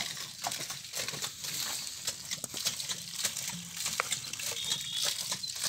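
Single-cylinder diesel pump-set engine running, driving a centrifugal water pump, with a steady rhythmic knocking beat over a hiss.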